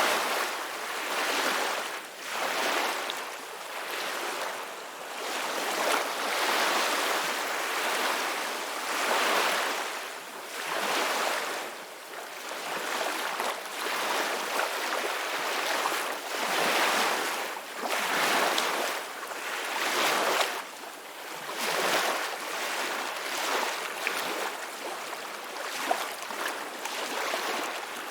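Ocean waves breaking and washing on a shore, a steady hiss of surf that swells and falls back every two to three seconds.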